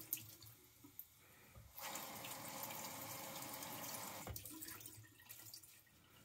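Bathroom sink tap running for about two and a half seconds, starting about two seconds in and trailing off, as a synthetic shaving brush is rinsed under it. A few light knocks come before the water.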